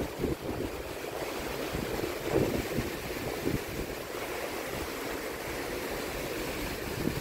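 Sea water rushing and churning along the side of a moving cruise ship, as a steady wash, with wind buffeting the microphone in irregular gusts.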